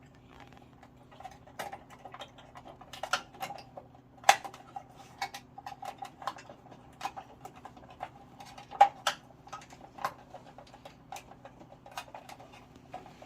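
Irregular sharp clicks and light metallic taps from hand work on an immersion heater thermostat and its parts, with two louder knocks about four and nine seconds in, over a faint steady hum.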